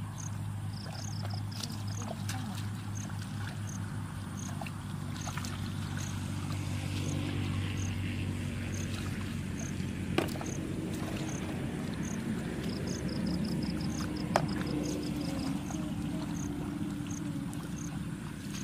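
A steady low engine drone, with a high chirp repeating about twice a second and two brief rapid trills above it. Two sharp clicks stand out, about ten and fourteen seconds in.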